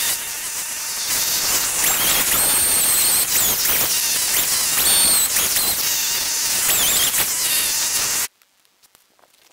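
Stihl chainsaw running at high revs while carving a fresh pine log, a loud hissing, whining noise that cuts off suddenly near the end.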